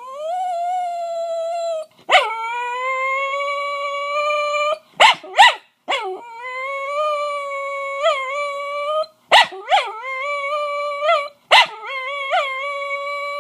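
Dog howling in long, steady, high notes of two to three seconds each, broken by short sharp yelps several times; the owner takes it as the dog wanting to go outside.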